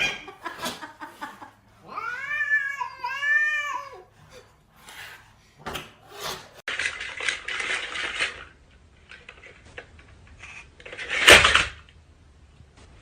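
A cat meowing twice in drawn-out, wavering calls, followed by scattered clicks, a stretch of hissing noise, and a short loud burst of noise near the end.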